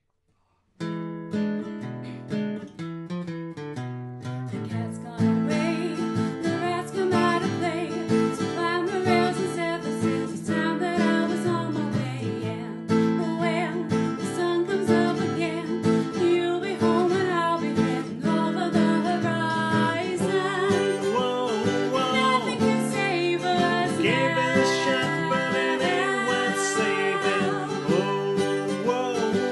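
Acoustic guitar strumming with a woman and a man singing together. The guitar starts alone and the voices come in about five seconds in.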